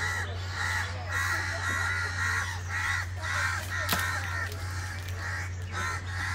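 Crows cawing over and over, about two harsh calls a second, above a steady low hum. There is a single sharp click about four seconds in.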